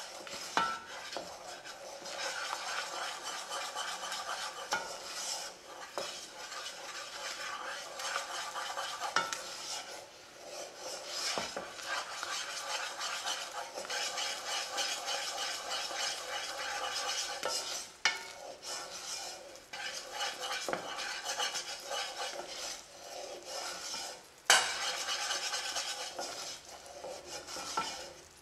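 A wooden spoon stirring and scraping a bubbling butter-and-sugar syrup round a saucepan, with the mixture sizzling as it cooks toward caramel. There is an occasional clack and one louder knock near the end.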